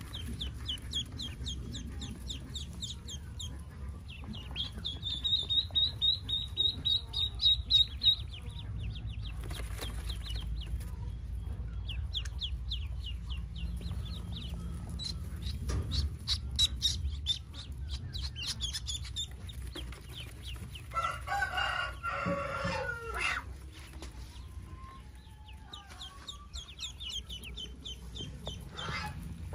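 Newborn Pekin ducklings peeping in quick runs of short, high, slightly falling peeps. About two-thirds of the way through comes one louder, lower, harsh call from an adult bird.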